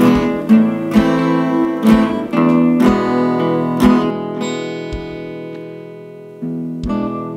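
Acoustic guitar strumming chords in an instrumental break of a ballad, about one stroke a second. About four seconds in, a chord is left to ring and fade out, and the strumming picks up again near the end.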